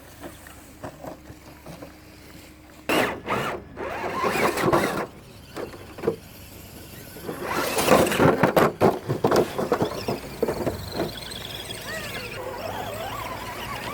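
Radio-controlled rock crawler's electric motor and geared drivetrain whining in bursts as it is driven up rock, with tyres scrabbling on the stone. The pitch rises and falls with the throttle.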